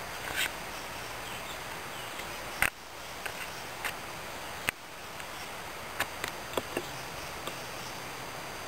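Steady outdoor background hiss broken by a few sharp clicks: two stronger ones about a third and halfway through, then a cluster of small ticks later on.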